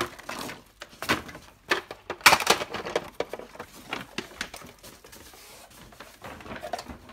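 Small plastic toys and pieces clicking and clattering as they are handled and set down, in a quick run of knocks that is loudest a little past two seconds in, then thins to a few faint clicks.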